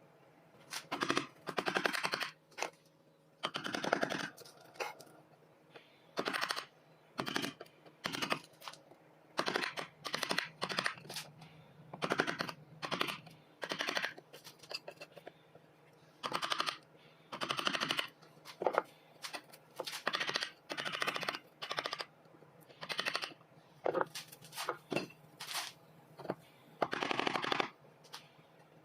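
A hand tool working wood in repeated short strokes, coming in irregular bursts about a second apart, each with a rapid rattling, grating texture.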